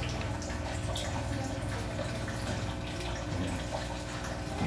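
Small aquarium air pump humming steadily, with soft watery trickling and scattered drips from the aerated hatching bottle.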